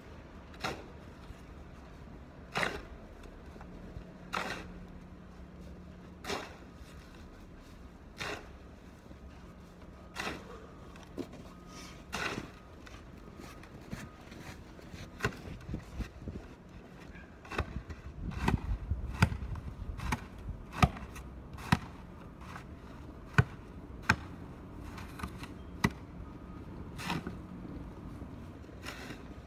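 Snow shovel striking and scraping the pavement, one stroke about every two seconds at first, then quicker, closer strokes from about halfway through.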